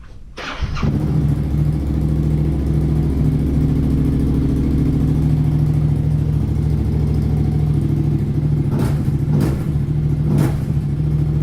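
Yamaha XSR700's 689 cc parallel-twin engine, fitted with an IXRACE MK2 aftermarket exhaust, starting about half a second in and then idling steadily and loud. A few short sharp sounds come near the end.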